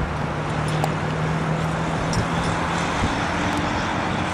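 Steady freeway traffic noise, with one vehicle's engine droning at a steady pitch for about three seconds, then briefly higher.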